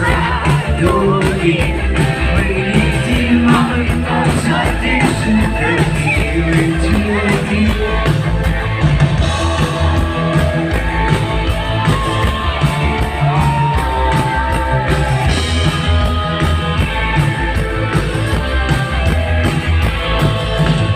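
A live rock band playing a song, with a steady, regular drumbeat, heavy bass and guitars under singing.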